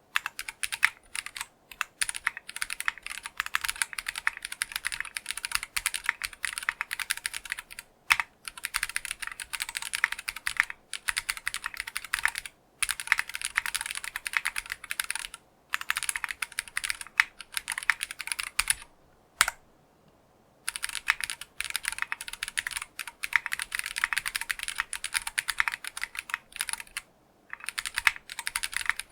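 Fast, continuous typing on a gasket-mounted 60% mechanical keyboard with factory-lubed Geonworks Clear switches, PBT keycaps and an aluminium plate. The keystrokes come in quick runs with a few brief pauses and a longer break about two-thirds of the way through.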